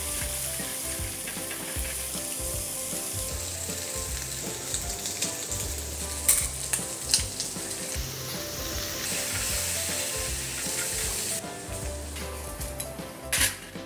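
Vegetables and bacon sizzling as they are stir-fried in a hot oiled nonstick wok with a silicone spatula. The hiss is steady, and a few sharp knocks of the spatula on the pan come about halfway through and again just before the end.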